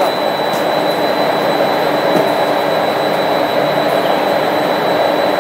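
A 3.6 m wide extrusion laminating line running at production speed, 200 m/min: a loud, steady mechanical rush with a thin high whine over it.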